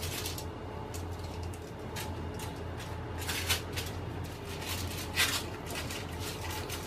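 Aluminium foil crinkling in short rustles, about half a dozen, as a wooden rolling pin rolls dough out on it and hands press it flat. A steady low hum sits underneath.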